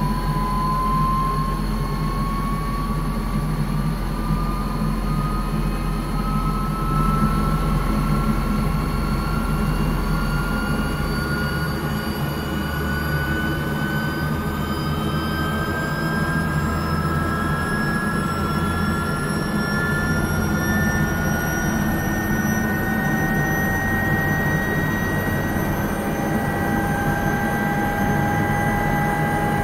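Helicopter turbine engine running on the ground with a whine that climbs slowly and steadily in pitch, over a low rumble: the engine and rotor spooling up before lift-off.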